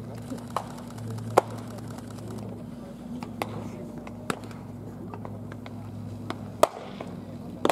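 Baseballs smacking into leather gloves as pitchers play catch: sharp pops at irregular intervals, the loudest about a second and a half in and again near the end, over a steady low hum.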